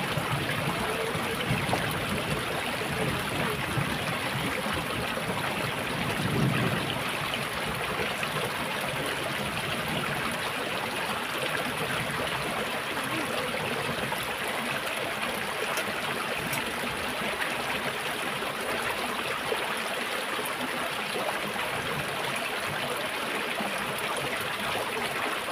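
Small shallow stream running over rocks, a steady even rush of water.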